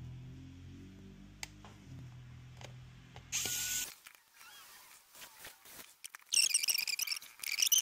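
Small electric precision screwdriver motor running steadily for about four seconds as it drives the screw holding the M.2 NVMe SSD, then stopping with a short hiss. Near the end comes a loud, high-pitched warbling trill.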